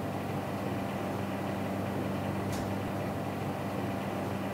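Steady mechanical hum and rush of commercial kitchen equipment, with a faint click about two and a half seconds in.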